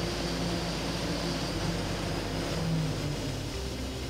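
Engine of an Atlas Copco portable air compressor running steadily, then dropping in speed in steps as air demand stops and the compressor unloads toward idle. A high hiss fades out about halfway through.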